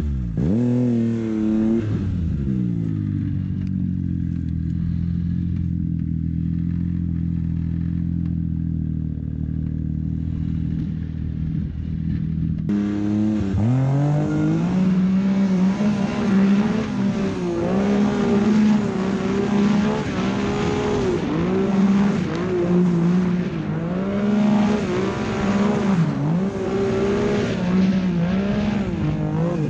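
Turbocharged Arctic Cat King Cat snowmobile engine working through deep powder. It revs up quickly and settles into a steady drone. About halfway through there is an abrupt change, and the engine then surges and dips again and again as the throttle is worked.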